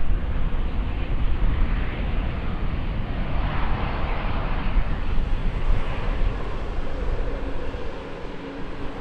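Airliner's engines heard close by: a loud rushing noise that swells about three to five seconds in, over a heavy low rumble, with a steady engine tone coming through near the end.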